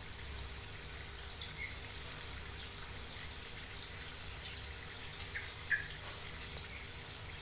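A small bird gives a few short, isolated chirps over a steady watery hiss. The loudest chirp comes about two thirds of the way through.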